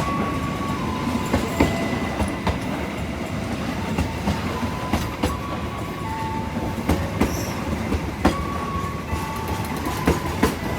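Train passing fast through the station: steady rumble with its wheels clacking over rail joints, and short high squealing tones now and then.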